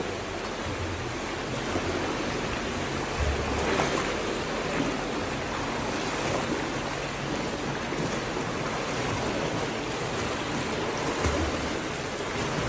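Steady splashing and wash of water in a swimming pool while a swimmer swims, with a couple of brief low thumps.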